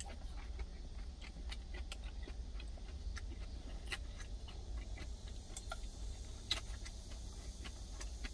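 Eating sounds: scattered small clicks and taps of wooden chopsticks against a stainless steel food tin, along with chewing, over a steady low hum. The sharpest click comes about six and a half seconds in.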